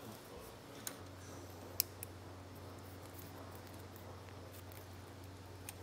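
Wire cutters snipping through thin insulated wires: a few sharp clicks, the loudest about two seconds in, over a steady low hum.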